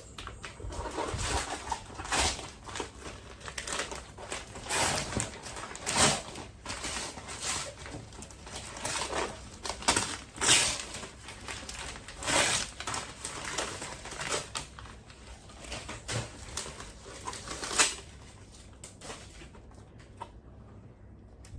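Toy figure packaging being handled and opened by hand: irregular rustling, crinkling and scraping with sharper crackles now and then, dying down near the end.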